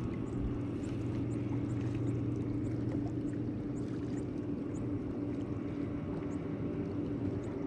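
Fishing kayak on open water: water sloshing around the hull over a steady low hum, with faint short high chirps scattered throughout.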